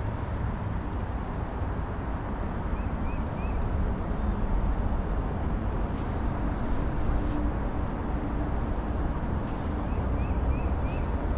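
Creek water rushing steadily, a full even wash of noise, with a bird giving a few faint short chirps, three about three seconds in and four more near the end.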